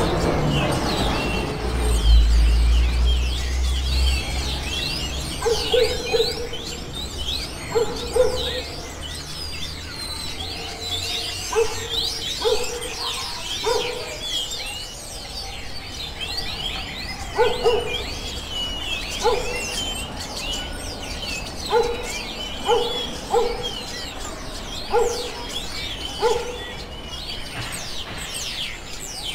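Many birds chirping and twittering in quick, high, overlapping calls, with short low notes repeating every second or two from about six seconds in. A brief low rumble comes about two seconds in.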